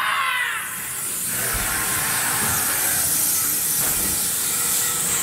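A steady high hiss from a dark-ride special effect that lasts about five seconds and fades near the end.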